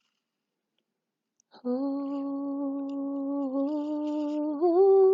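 A lone unaccompanied voice humming a slow worship melody in long held notes, starting about a second and a half in after silence and stepping up to a higher note near the end.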